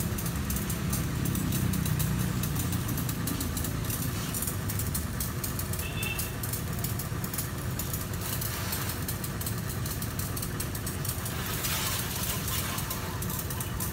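A motor running steadily with a low rumble, under the hiss of a strong water jet spraying onto a car.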